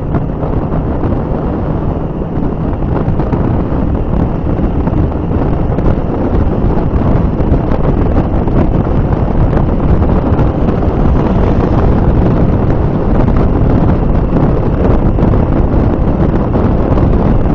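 Heavy wind rushing over the microphone of a camera carried on a moving motorcycle, a loud, steady buffeting with the ride's road noise underneath.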